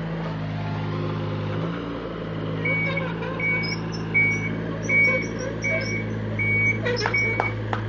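Excavator diesel engine running steadily, with a travel alarm beeping at an even pace, about every three-quarters of a second, starting about a third of the way in as the machine moves on its tracks. A few sharp clicks come near the end.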